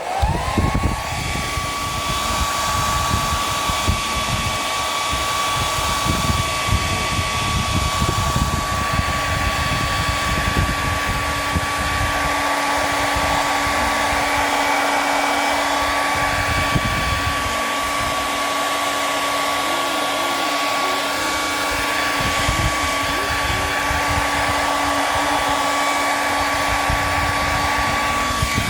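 Hair dryer switched on, its motor whine rising briefly and then holding steady over a continuous rush of blown air with uneven low buffeting on the microphone, switched off at the end. It is drying a wet, dripping coating on a squishy.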